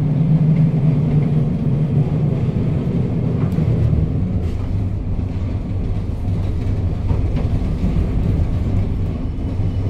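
Historic tram running along the street, heard from inside the car: a steady low rumble of wheels on rails and motors, with a low drone that shifts lower about four seconds in.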